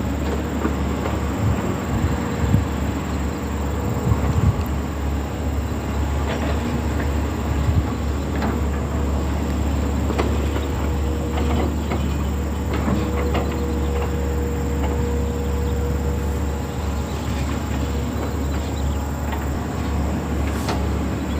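Hydraulic excavator's diesel engine running steadily with a deep rumble, with scattered knocks and clanks of metal throughout.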